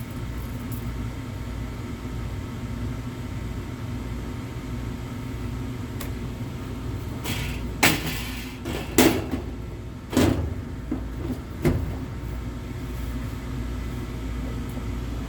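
Carrier 58PAV gas furnace running with a steady, even hum, its newly replaced inducer motor turning. About halfway through come four sharp metal knocks or clanks, like panels or tools being handled.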